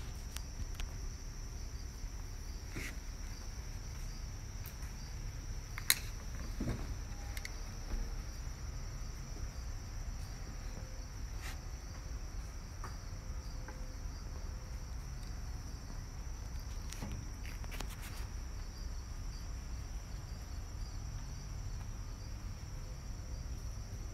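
Insects chirring in a steady, high, even drone, over a low rumble. A few light clicks and taps are scattered through it, with one sharp click about six seconds in.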